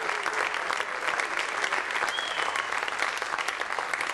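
Theatre audience applauding steadily, with a brief whistle about two seconds in.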